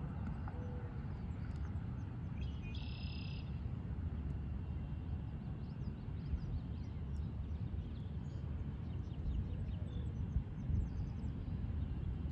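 Steady low rumble of outdoor background noise, with faint high bird chirps scattered through it; the clearest chirp comes about three seconds in.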